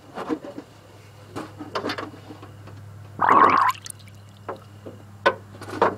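Coolant forced out of the leaking intake manifold gasket seam beside the valve cover by air blown into the radiator: short splashes and one louder gush a little over three seconds in. The leak is from a failed intake manifold gasket that a previous owner had patched with caulk.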